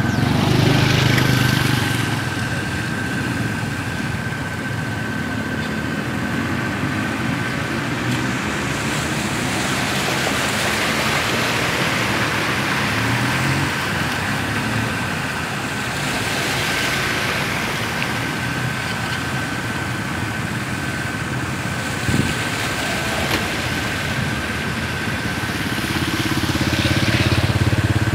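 Motorbikes and cars driving through knee-deep floodwater: engines running and tyres pushing a rushing wash of water, loudest as vehicles pass about a second in and again near the end. A single sharp knock comes about three quarters of the way through, and a thin steady high tone runs underneath.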